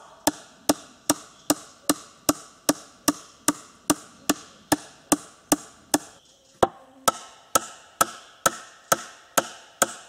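Hammer blows driving a nail into a wooden board: a steady run of sharp strikes, about two and a half a second, with a brief pause about six seconds in.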